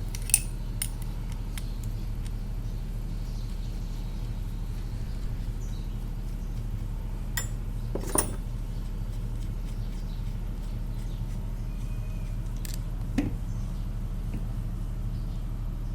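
Metal parts of a car alternator and hand tools being handled during disassembly: a few scattered sharp metallic clicks and clinks over a steady low hum.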